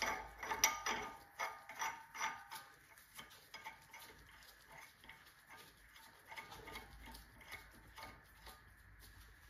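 Light metallic clicks and clinks of steel puller rods being threaded by hand into a bearing separator. A quick run of small clicks comes in the first couple of seconds, then occasional faint taps.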